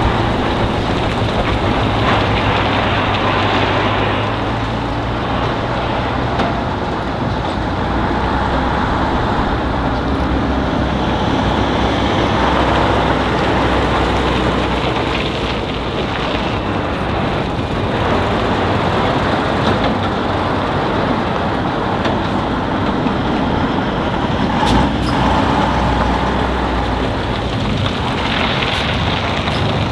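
Heavy Tatra 815 military trucks driving slowly past one after another, their diesel engines running steadily.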